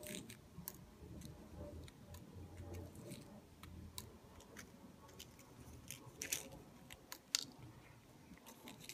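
Faint, scattered small clicks of tiny beads being picked and nudged out of a paper shaker-clip frame with fingertips.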